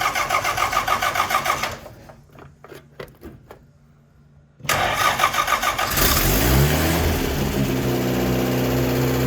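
Car engine with a Rochester carburetor being started after sitting for almost a year: the starter cranks, stops for about three seconds, cranks again, and the engine catches about six seconds in, revs up and settles into a steady idle. The owner names an exhaust leak and a bad Rochester carb on this engine.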